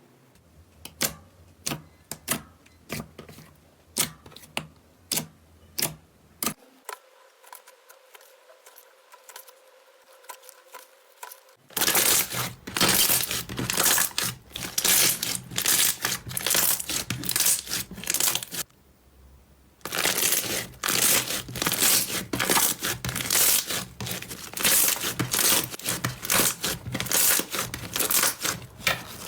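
Slime being pressed and squeezed. It starts with separate sharp pops about twice a second, then after a quiet lull of several seconds turns into a dense, continuous crackling, which breaks off briefly about two-thirds of the way through.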